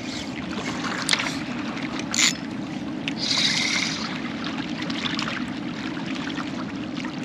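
Steady wash of choppy inlet water against jetty rocks mixed with strong wind on the microphone, with a few sharp clicks and a short, higher hiss about three seconds in.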